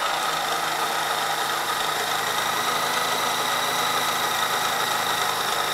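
Magimix Cook Expert food processor motor running with a steady whine, its Spirelli cutter slicing a carrot pushed down the feed tube into tagliatelle-style ribbons.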